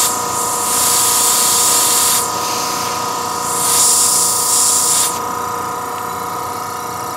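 Master Airbrush TC-40T airbrush compressor running with a steady hum while air hisses out of its open hose end, loud in two spells of about a second and a half each. With the outlet open it is never going to get up to pressure.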